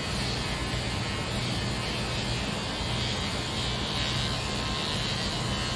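Electric hair clippers buzzing steadily as they cut a man's short hair.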